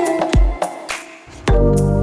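Background music with a steady beat; about one and a half seconds in, a loud, steady machine noise cuts in over it.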